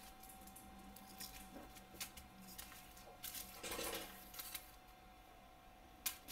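Small plastic zip-lock bags filled with diamond painting drills being handled and set down on a table: faint crinkling and light taps, a longer rustle in the middle, and a sharp click near the end, over a faint steady hum.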